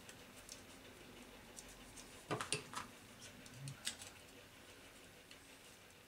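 Faint, short clicks and light rattles of the carbon brush holder and its lead clip on a Hotpoint Aquarius washing machine motor being worked loose by hand. A few clicks come about two to three seconds in, and one more near four seconds.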